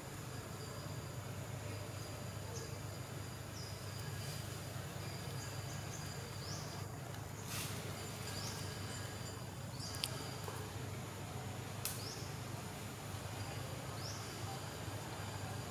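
Forest ambience: a steady insect drone with short rising chirps every second or two, and a few sharp clicks.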